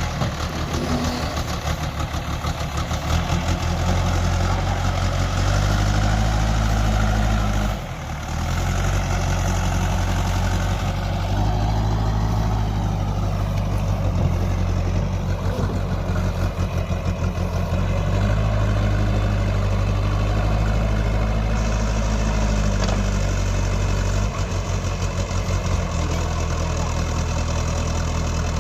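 Diesel engine of a JCB 3DX Eco backhoe loader running, its level stepping up and down several times as it is throttled, with a brief drop about eight seconds in.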